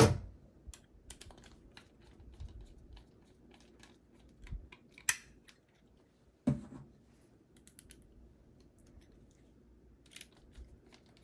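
Scattered clicks and knocks of a 3.5-inch hard drive being handled and fitted into a desktop PC's drive bay. A sharp click about five seconds in and a knock about a second and a half later stand out.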